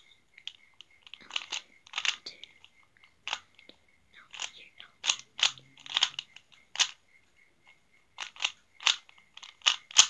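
Plastic clicking and clacking of a 3x3 Rubik's Cube's layers being turned quickly by hand during a solve. The turns come two or three a second in uneven runs, with a short pause about seven seconds in.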